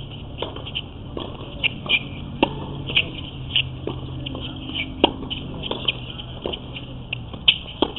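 Scattered sharp knocks of tennis balls bouncing on a hard court and off rackets, at irregular intervals, over a steady low hum that fades out near the end.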